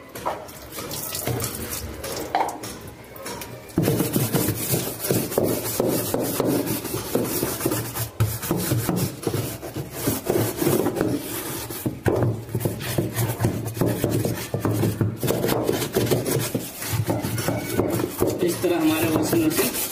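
Hand scrubbing the grimy floor of a top-loading washing machine's tub around the drive hub, with the pulsator removed: a steady rough rubbing and scraping that gets louder about four seconds in.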